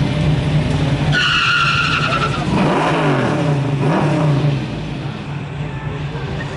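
Two turbocharged Isuzu Impulse four-cylinder engines launching off a drag strip start line. Engines run steadily, then there is a brief high tyre squeal about a second in. The engines then rev up and drop back with each gear change, fading as the cars pull away.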